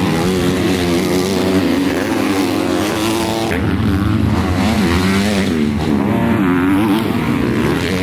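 MX2 motocross bike engines revving hard. The pitch rises and falls again and again as the throttle is opened and closed through gear changes.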